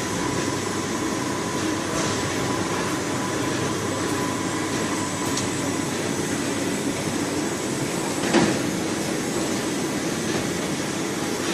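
Squid-processing machinery running steadily, with a faint whine during the first half and a single knock about eight seconds in.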